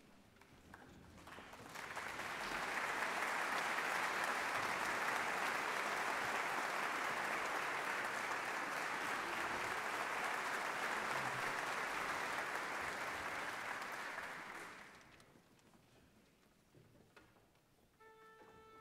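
Concert-hall audience applauding for about thirteen seconds, building quickly and then dying away. Near the end a single steady held note begins.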